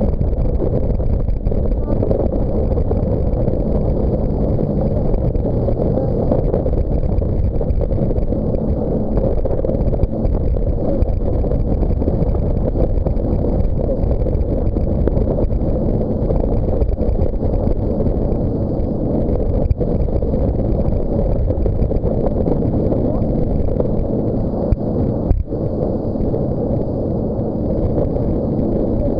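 Steady heavy rush of wind buffeting the microphone and water noise while riding an inflatable banana boat towed at speed across the sea, with a faint engine tone in the first few seconds.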